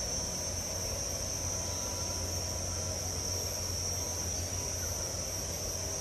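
Steady, unbroken high-pitched insect chorus, with a low steady rumble underneath.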